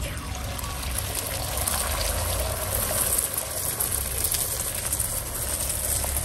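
Beaten eggs poured onto a hot griddle, sizzling steadily with a fine crackle as they spread and set.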